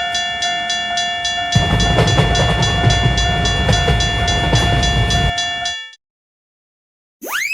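Japanese railroad crossing alarm bell ringing in rapid, even dings, about four a second, while a train rushes past with a loud rumble from about a second and a half in. Both cut off abruptly, and near the end a rising cartoon whistle-slide begins.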